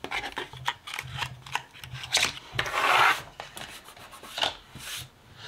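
Lipstick cases and their cardboard packaging being handled and put down: scattered small plastic clicks and taps, with a rasping rub about three seconds in.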